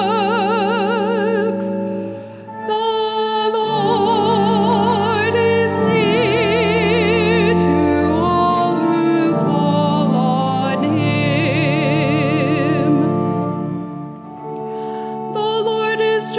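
Responsorial psalm sung at Mass: a solo cantor singing with wide vibrato over held accompaniment chords, with short breaks in the phrase about two seconds in and again near fourteen seconds.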